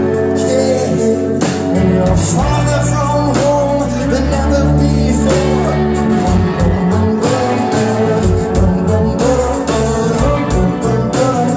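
Live rock band playing: electric guitars, bass and drum kit, with a male singer's voice over them.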